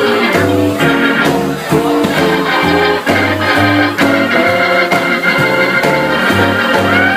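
Live band playing an instrumental break: organ holding chords over an even bass line, with drums keeping the beat.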